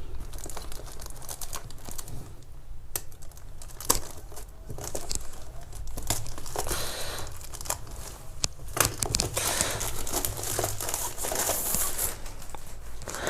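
Polythene wrapper crinkling and tearing as it is pulled open and off a boxed keyboard: irregular crackling with a few sharper snaps.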